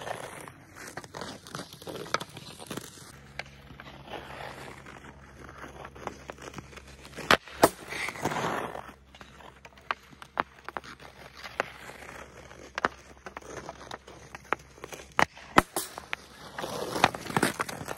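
Ice hockey being played on outdoor ice: skate blades scraping and carving, the click of a stick working the puck, and two sharp shots, about halfway through and again near the end. Each shot is followed by a scraping swell of skates on the ice.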